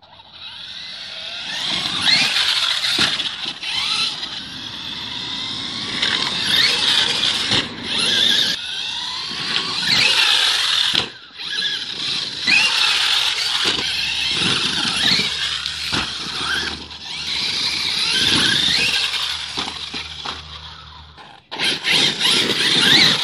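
Axial Yeti XL RC truck's Castle 2200kv brushless motor and drivetrain whining at high pitch, rising and falling with the throttle as it drives over rough ground, with a few knocks from the chassis and tyres. The sound cuts out briefly twice.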